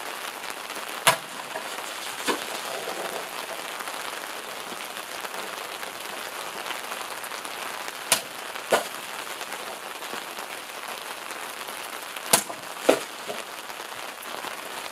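Steady rain hiss with six sharp smacks of sword blades cutting through plastic water jugs. The last four come in two close pairs, about half a second apart.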